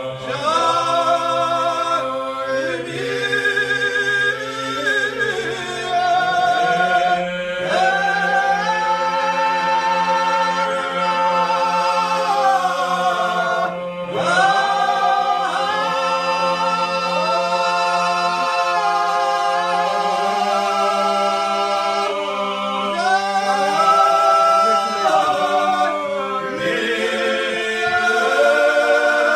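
Georgian polyphonic folk song sung a cappella by a group of men: a low held bass note with several voices moving above it. The bass note steps up about six seconds in.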